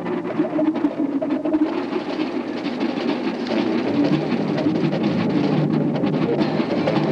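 Marching band playing a dense, noisy passage on a worn old recording, with a few faint held notes near the start.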